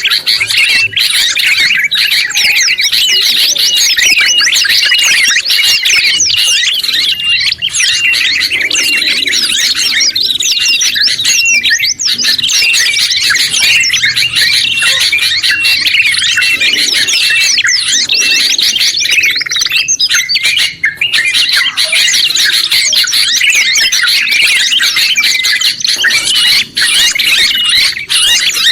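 Loud, unbroken chirping and twittering of several small songbirds layered together: yellow-vented bulbul, ashy tailorbird, sooty-headed bulbul and oriental white-eye in a mixed birdsong recording, rapid high notes crowding on one another.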